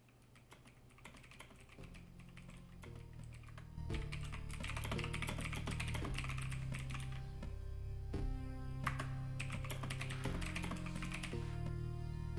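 Typing on a computer keyboard, key clicks coming in quick runs, over music with low sustained notes. It fades in over the first few seconds and is fuller from about four seconds in.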